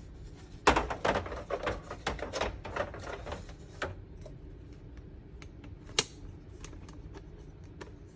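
Hard plastic diorama pieces being handled: a quick run of clicks and rustling in the first few seconds, then scattered light ticks and one sharp click about six seconds in.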